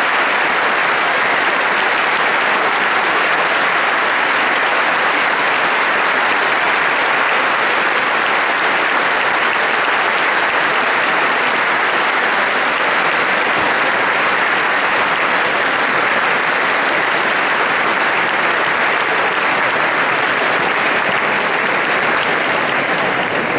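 Large audience applauding steadily, a dense, unbroken wash of clapping.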